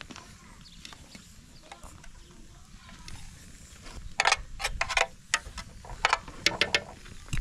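A quick run of about ten sharp, clattering strokes, starting about four seconds in and lasting about three seconds, over a faint outdoor background.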